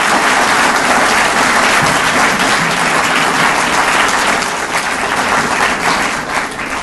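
Audience applauding, a dense steady clatter of many hands that dies down near the end.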